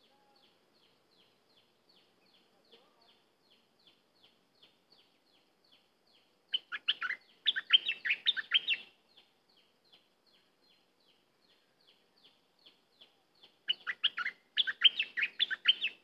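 A caged bulbul sings: short high chirps repeat about twice a second, broken by two louder bursts of quick warbling song, one about a third of the way in and one near the end.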